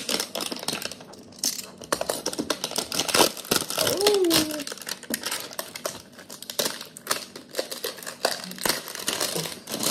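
Plastic bubble wrap crinkling and crackling in irregular bursts as it is pulled and torn off a cardboard box by hand. A short hum from the person comes about four seconds in.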